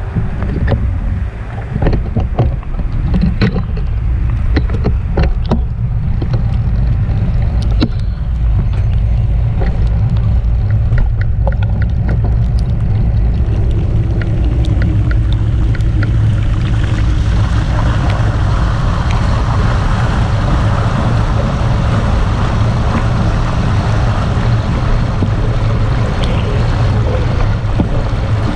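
Wind buffeting the action camera's microphone as a bicycle rides along a rain-soaked path, with scattered sharp ticks in the first half. A bit past halfway, a louder hiss of splashing water joins in as the tyres run into flood water.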